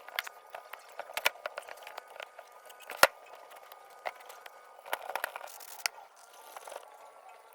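Irregular clicks and taps of handling and small tools during a wooden speaker repair, with one sharp knock about three seconds in.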